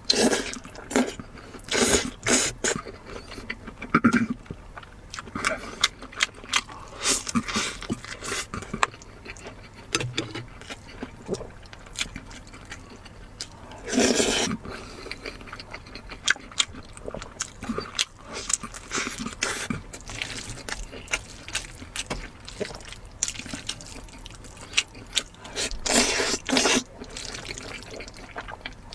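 Close-miked eating sounds: wet chewing, lip smacking and slurping, in a run of short sharp clicks with a few louder bursts.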